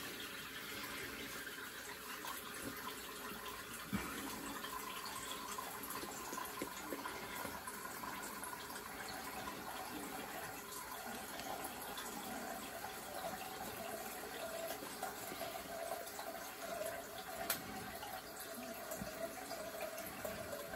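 Tap water running steadily into a bathroom sink as it fills, heard faintly.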